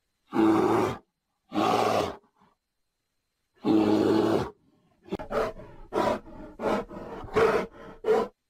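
Bear roaring: three growling roars in the first four and a half seconds, each cut off sharply, then a quicker run of about six shorter growls.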